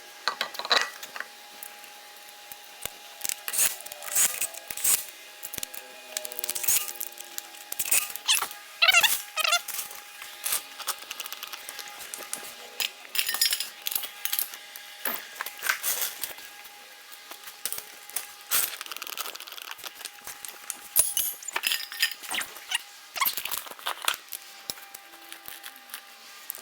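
Irregular sharp metal clinks and clicks of hand tools and parts being handled, over a faint steady tone.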